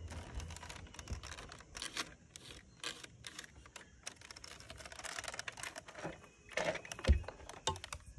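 Plastic toy truck being handled and lifted: irregular clicks and light rattles of its plastic parts, with a louder knock about seven seconds in.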